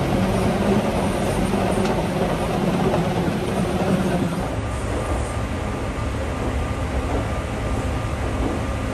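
Airport moving walkway running with a steady rumble, over the hum of the terminal corridor. About halfway through it gives way to airport apron noise: a lower, steady rumble with a faint steady whine.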